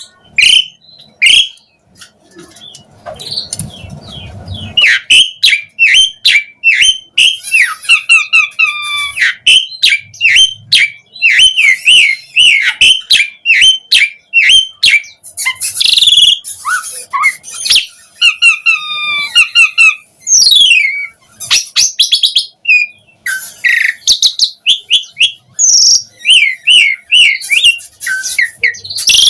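Pied starling (jalak suren) singing a fast, varied song of loud chirps and whistled notes in quick runs, with a few short pauses.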